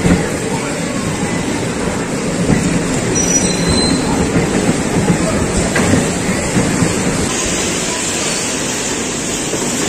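Electric bumper cars rolling over the ride's metal floor: a steady rumbling clatter, with a few louder knocks as cars bump.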